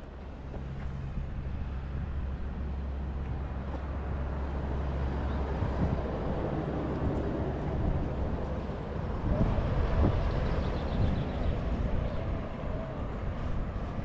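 Road traffic: a pickup towing a trailer drives past, its engine and tyre noise swelling and loudest about ten seconds in.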